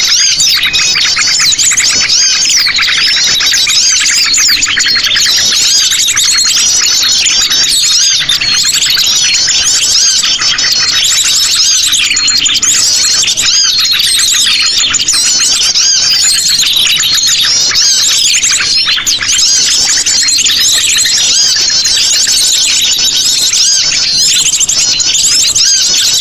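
Sogon birds calling noisily in a lure recording: dense, unbroken high chirping and trilling, many calls overlapping. This is the busy, agitated calling that bird trappers play to draw birds in.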